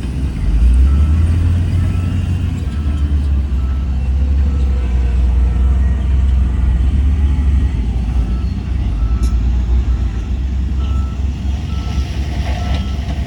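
Heavy diesel earthmoving machine running with a deep steady rumble while its reversing alarm beeps at a single pitch about every two-thirds of a second, starting about a second and a half in.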